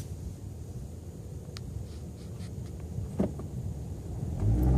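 Low, steady rumble of a car heard from inside the cabin, with a few light clicks. Near the end a louder, steady engine hum comes up.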